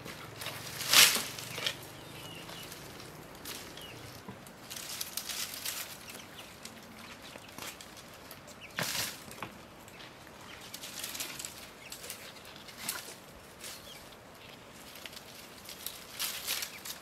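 Dry brushwood twigs rustling, crackling and scraping against each other as a bundle of kindling is handled. The loudest crash of twigs comes about a second in, another about halfway, with lighter rustles between.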